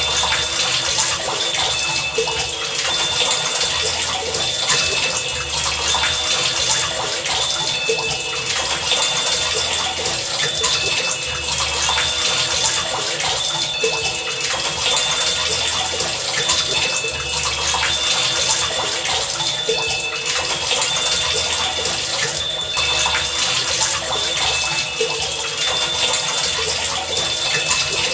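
Heavy rain falling in a steady, dense hiss. Short high tones and low pulses recur every couple of seconds underneath it.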